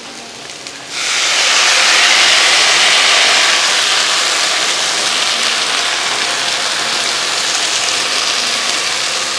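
Tamarind water poured into hot oil and fried chilli powder in a cooking pan: a loud sizzle starts suddenly about a second in and carries on steadily, easing a little.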